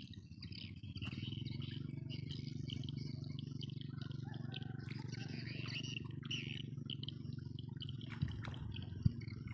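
Open-air rice-field ambience: a steady low rumble under irregular high chirping calls of small animals. Two sharp clicks come about eight and nine seconds in.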